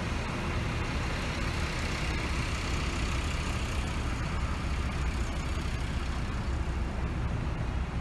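Steady low rumble of heavy diesel engines idling, typical of parked buses running, over a constant haze of road traffic noise.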